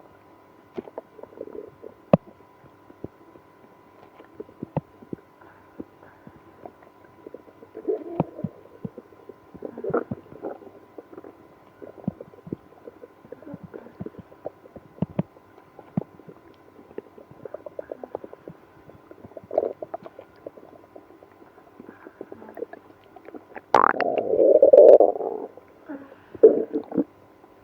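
Stomach and bowel gurgling: irregular rumbles with many small clicks and pops, and one longer, louder gurgle about 24 seconds in. This is digestive upset in someone with IBS after drinking milk and prune juice.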